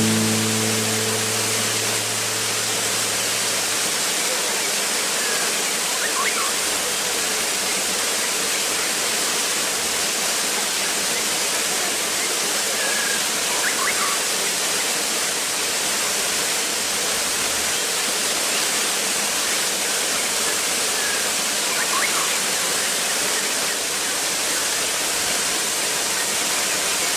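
Waterfall: a steady, even rush of falling water. A music note rings out and fades in the first few seconds, and a few faint short chirps come about every eight seconds.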